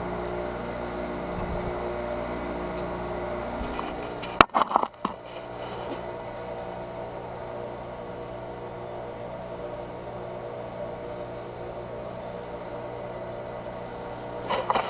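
Bench grinder motor running with a steady hum while a small metal piece is held at the wheel. A little over four seconds in, the hum cuts off abruptly, followed by a brief cluster of loud knocks, then a quieter steady background with more knocks near the end as a small metal part is handled with pliers.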